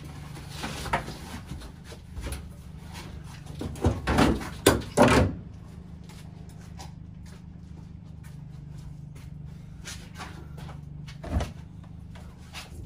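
Knocks and clattering of things being moved and bumped around in a garage, with a burst of several loud knocks about four to five seconds in and a single thump near the end, over a steady low hum.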